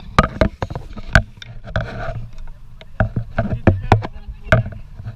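A series of irregular sharp knocks and clicks, some with a low thud, over a low rumble.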